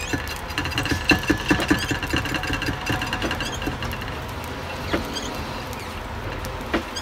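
Rapid clicking and scraping as a smoldering smudge bundle is pressed and rubbed against a glass bowl of burning embers, thinning out after a few seconds, with a single sharper click near the end.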